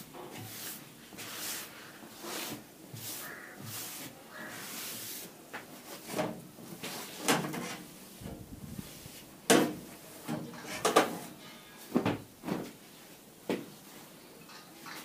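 Kitchen handling noises: a plastic bag rustling for the first few seconds, then a string of sharp knocks and clatters as things are put down and moved about, the loudest a little past halfway.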